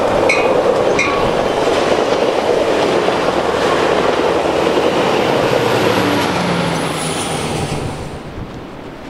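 A Coaster commuter train's bilevel passenger cars rush past close by, with regular sharp metallic clacks in the first second. The diesel locomotive at the rear passes later with an engine drone and a high whine falling in pitch. The sound dies away near the end.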